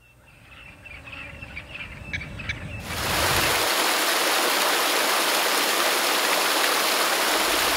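Rushing water cuts in suddenly about three seconds in, a loud, steady, even rush. Before it there is only a faint low rumble with a few short high chirps.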